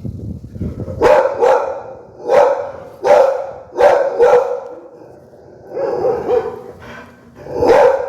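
Pit bull barking: a run of about nine loud, short barks in uneven groups of one to three, with pauses of up to a second between them.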